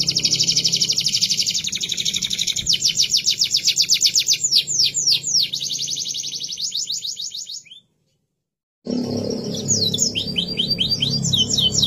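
Domestic canary singing: long, fast trilled rolls of rapidly repeated high notes, one roll running into the next. The song stops dead for about a second about two-thirds through, then resumes with quick falling notes.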